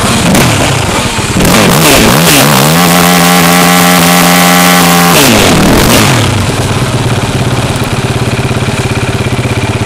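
Yamaha YFZ 450 quad's single-cylinder four-stroke engine revving up and down through the gears, then held at steady high revs. About five seconds in the revs fall away, and it settles to an even idle.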